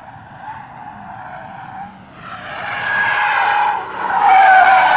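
Tyres of a Bentley Continental GT squealing as the car slides through a corner, growing louder from about two seconds in, easing briefly just before four seconds, then loud again.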